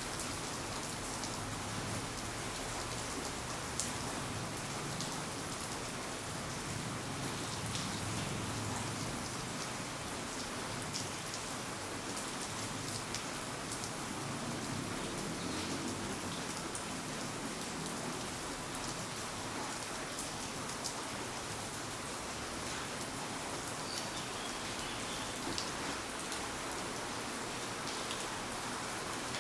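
Steady rain falling on hard surfaces, an even hiss with scattered drops ticking close by.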